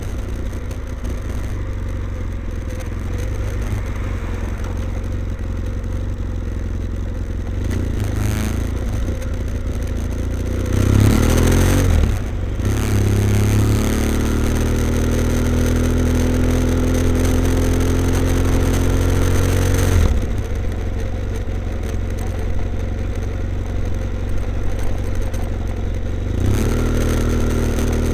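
BMW F800ST's parallel-twin engine through a Blue Flame twin-port exhaust with both baffles in, running low and steady, then rising in revs about eleven seconds in and held higher until easing off around twenty seconds, picking up again near the end.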